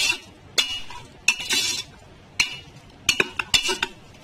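Metal spoon stirring masala-coated chicken pieces in a pressure cooker pot, clinking and scraping against the metal sides and bottom in a series of irregular strokes.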